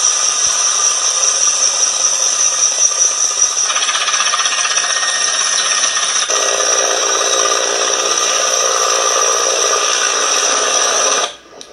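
Russian military helicopters, a Ka-52 and Mi-8s, running: loud steady turbine whine with rotor noise. The sound changes abruptly about four and six seconds in and stops suddenly near the end.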